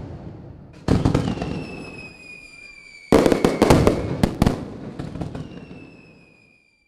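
Logo-intro sound effect of fireworks: two bursts, about a second and three seconds in, each a cluster of sharp crackles that dies away, with a high whistle slowly falling in pitch.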